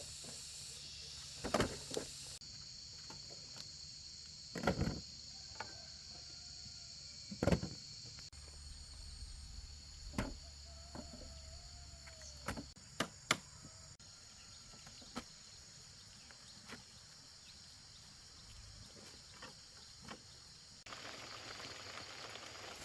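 Steady high-pitched insect chirring, broken by several sharp knocks a few seconds apart.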